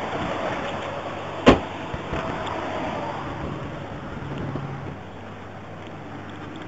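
Steady vehicle noise with a low hum, broken by a single sharp thump about a second and a half in; the noise grows quieter about five seconds in.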